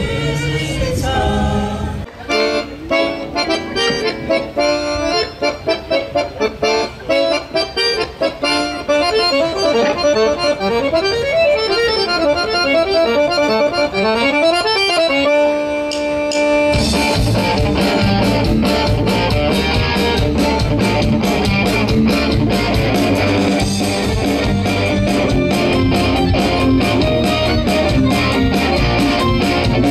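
A women's choir sings a folk song for the first couple of seconds. Then a solo accordion plays a lively tune with quick runs up and down and holds a chord. At about 17 seconds a full folk band joins in with electric guitar, bass and drums, playing to a steady beat.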